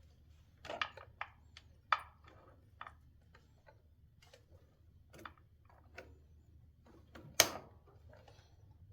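Metal compensator parts of a Harley-Davidson primary drive being worked into place by hand: a string of irregular clicks and clinks, with one sharper metal knock about seven and a half seconds in.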